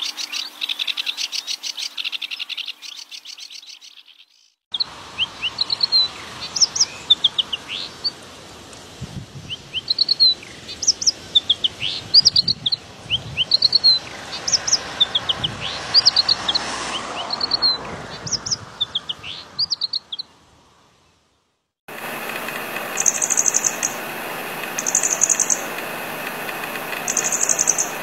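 Wild birds calling in three separate recordings that cut abruptly. First a fast, buzzy trill fades out. Then a bird sings a run of short, sharp whistled notes. Then a short high call repeats about every two seconds over a steady drone.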